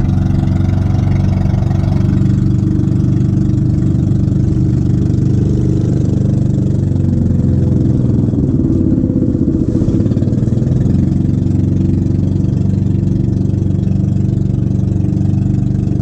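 Engine of a motorized outrigger boat (bangka) running steadily under way, a loud, even drone whose pitch wavers slightly around the middle.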